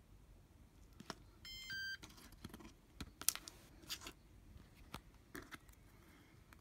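A short electronic beep about one and a half seconds in: two brief tones, the second lower. Around it, light clicks and taps of small plastic parts being handled.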